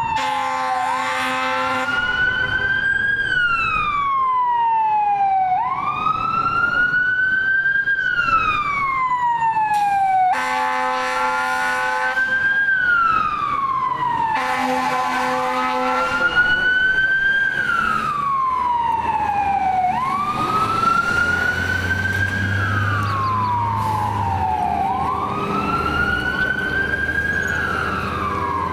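2006 Pierce Quantum fire engine's siren on a slow wail, rising and falling about every five seconds. Steady horn blasts sound over it at the start, around ten seconds in and around fifteen seconds in.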